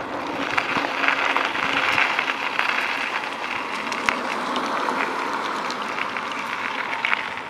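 Bicycle rolling over a gravel path: steady tyre noise with many small clicks and rattles.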